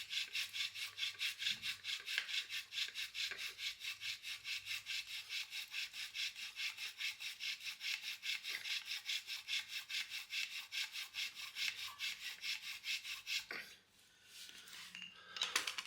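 Wooden bow drill being worked, its spindle rasping in quick, even back-and-forth strokes, a few a second. The top of the spindle turns in the pivot divot of a Victorinox Venture knife's handle, used as the bearing block. The strokes stop about two seconds before the end.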